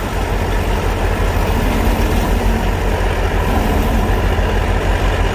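Tractor engine running steadily under load, the tractor being driven down off a hill.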